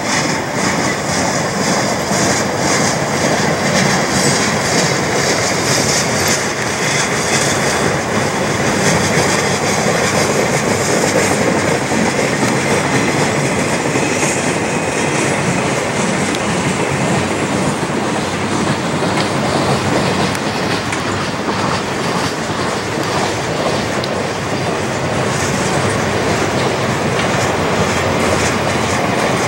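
Cars of a CP Rail continuous welded rail train rolling past, steel wheels clattering over the track, with a high wheel squeal in the first half that dies away about halfway through.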